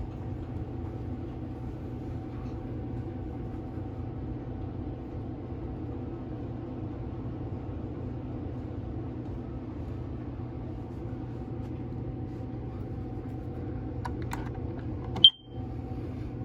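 A steady low hum runs throughout. About fifteen seconds in, a smoke alarm gives one short, loud, high-pitched beep.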